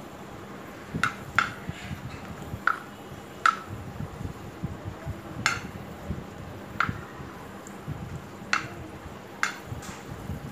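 Steel spoon scraping and clinking against a dosa griddle while stirring cashews frying in ghee: about eight sharp clinks at irregular intervals.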